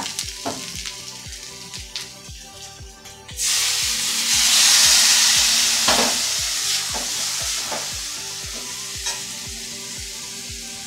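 Metal spatula stirring and scraping fried potatoes in a steel kadai, then about three seconds in a sudden loud sizzle as wet mustard paste goes into the hot oil, fading slowly over the next few seconds.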